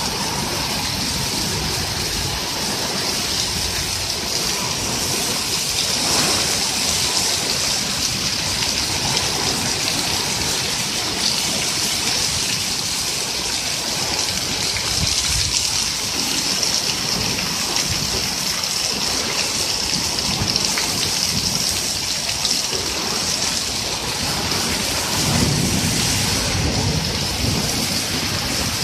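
Heavy rain pouring steadily onto a concrete patio and lawn, with water streaming off a roof edge. A low rumble of thunder swells about 25 seconds in.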